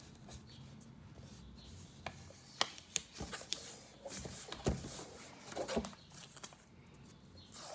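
A sheet of paper being folded and creased by hand, rustling softly with irregular sharp crackles as the folds are pressed down.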